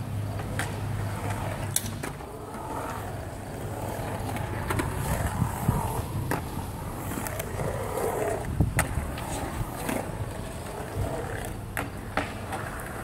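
Skateboard wheels rolling and carving on a concrete bowl: a steady rolling rumble broken by a dozen or so sharp clacks and knocks of the board, the loudest just before nine seconds in.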